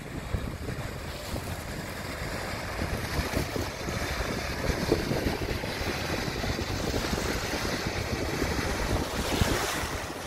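Wind buffeting the microphone over the steady rush of sea water along a sailing yacht's hull under way.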